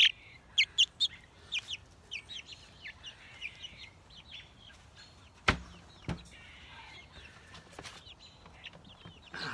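Month-old chicks peeping: a string of short, high, falling chirps, thickest in the first second or two and then thinning out. A single sharp knock sounds about five and a half seconds in, with a fainter one just after.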